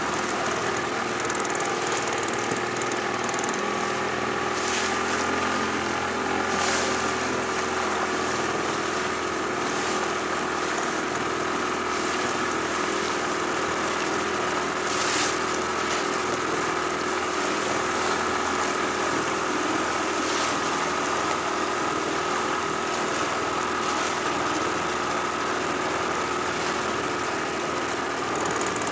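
Small outboard motor running steadily at a constant speed, with a few brief splashes of water.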